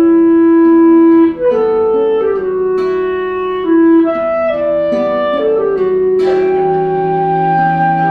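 Slow instrumental music: a woodwind melody of long, sustained notes over other held notes, with a lower note coming in and holding about six and a half seconds in.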